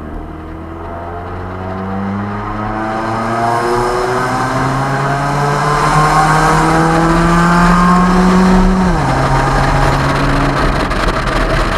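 Car engine accelerating through one gear, its pitch climbing steadily for several seconds, then dropping sharply at an upshift about nine seconds in and holding steady. Wind and road noise grow as speed builds.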